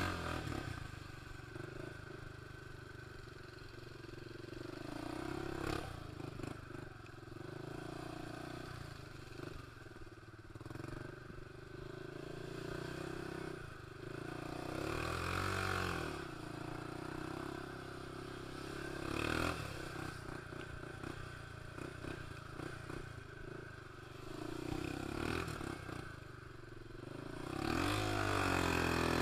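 ATV engine running while riding a rough dirt trail, revving up briefly about halfway through, again a few seconds later and near the end, with clatter from the machine over the bumps.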